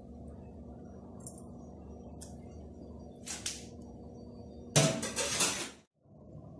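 Metal spatula clinking against a wok in a few light taps. A louder clatter lasting just under a second comes about five seconds in. A steady low hum runs underneath.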